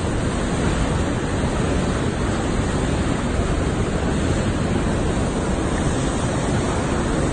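Turbulent river water rushing steadily, an even, unbroken noise.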